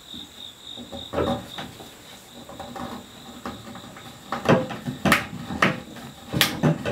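Dry, unglued wooden spindles being twisted by hand into tight holes in a wooden chair seat, wood clicking and knocking against wood. A few faint knocks come early, then a quick run of sharp knocks and clicks starts about two-thirds of the way in.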